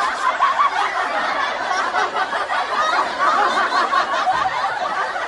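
Several people laughing and chuckling together, steady and continuous, with many voices overlapping.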